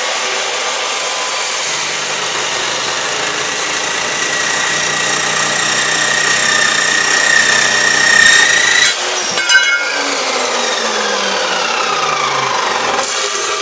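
A 14-inch dry cut saw with a carbide-tipped cold-cut blade cuts through steel angle iron, running loud and steady with a high ringing whine over a harsh cutting noise. About nine seconds in the sound changes, and its ringing tones then fall steadily in pitch for a few seconds. A short loud burst of noise comes near the end.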